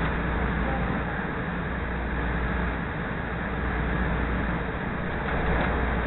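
Steady running noise of a CTA Green Line rapid-transit train, heard from inside the car as it moves along the track.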